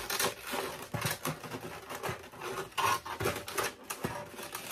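Clear plastic blister tray crinkling and clicking as it is handled and pried open: a busy, irregular run of crackles and taps.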